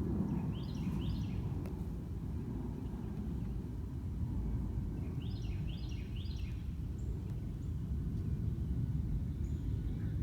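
Steady low outdoor background rumble with a small bird singing twice, each time a quick run of falling chirps: about a second in and again around five seconds in.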